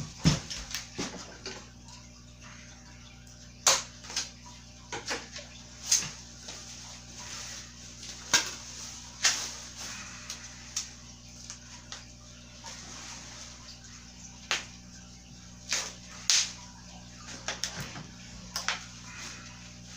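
Bike parts and packing material being handled: scattered rustles and sharp clicks every second or so, over a steady low hum.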